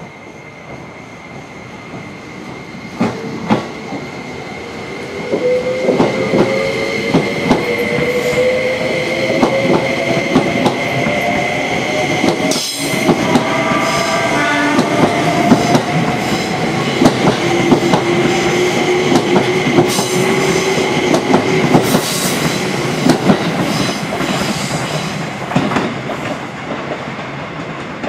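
Electric train running on the track close by, with sharp wheel clicks over rail joints. A motor whine rises slowly in pitch through the middle, and the sound grows louder over the first few seconds.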